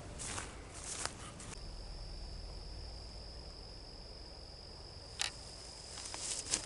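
An insect trilling: a steady high-pitched note that starts about one and a half seconds in and holds. Before it, a few footsteps rustle through dry pine straw and grass, and about five seconds in there is a single soft tick.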